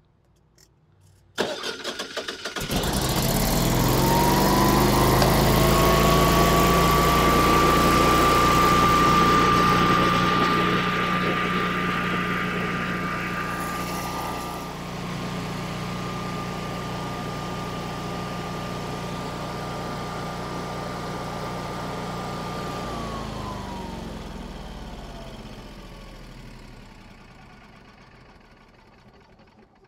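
Natural-gas Generac home standby generator engine cranking briefly, catching and running steadily in exercise mode with no load. It sounds smooth, with none of the under-load stumble from fuel starvation. Near the end its pitch falls and it fades as it winds down.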